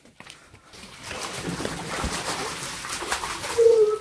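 Water splashing in an inflatable paddling pool as children kick and paddle, starting about a second in. A short pitched sound near the end is the loudest thing.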